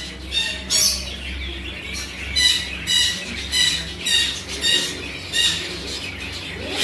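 Caged birds squawking in short, harsh calls over and over, about one or two a second, over a low steady hum.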